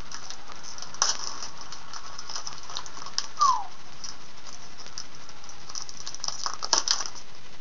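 A trading-card pack wrapper being torn open and handled, with short crackles and rustles, the loudest cluster near the end, and a brief falling squeak about three and a half seconds in.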